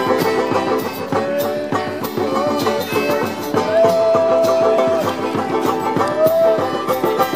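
Lively music with a quick plucked-string accompaniment and a melody line that holds long notes about halfway through and again near the end.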